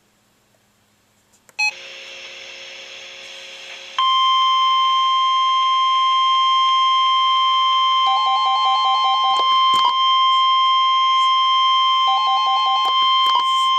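NOAA Weather Radio warning alarm tone: a loud, single steady tone of about 1050 Hz held for about ten seconds, the signal that activates weather alert receivers. It is preceded by a sharp click and short beep, then a steady hiss as the broadcast opens. Twice over the tone, a lower rapid beeping sounds for about a second or so.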